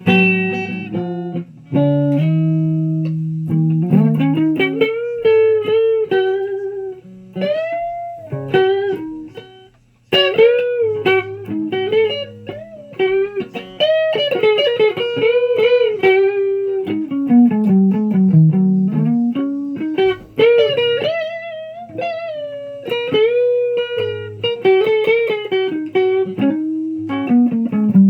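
Electric guitar played through an amplifier: a run of single-note lead lines with frequent string bends and slides.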